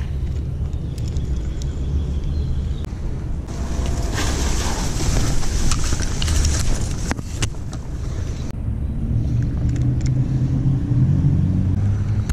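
Low, steady rumble of road traffic. From about three to eight seconds in, a rustling hiss with small cracks as leaves and stems brush past the microphone.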